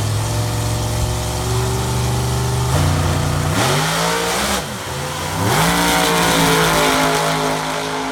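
Drag racing car engines idling loudly at the starting line, then revving up about three seconds in and launching: the pitch rises, dips once and climbs again as the cars accelerate away down the strip.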